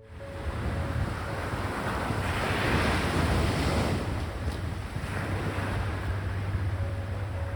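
Strong sea waves breaking on the shore, one swelling and crashing about two seconds in. Wind buffets the microphone, adding a low rumble.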